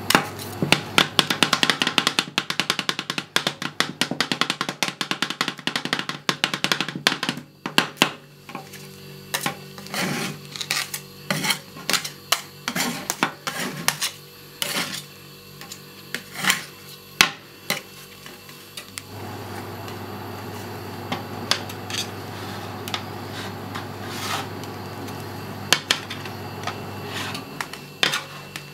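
Two metal spatulas chopping and mashing a curd dessert on a frozen rolled-ice-cream plate: fast, dense tapping for the first several seconds, then slower separate clicks and knocks, then scraping as the freezing mixture is spread flat. A steady low hum runs underneath.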